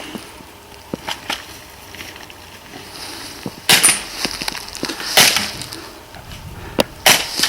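Airsoft gunfire: a few small sharp clicks early on, then louder cracks about one and a half seconds apart in the middle and two close together near the end.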